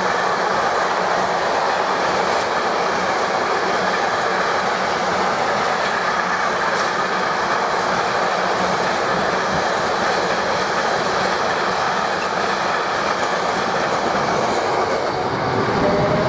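A long train of container wagons rolling past steadily, wheels clattering over the rail joints. Near the end a rising whine begins.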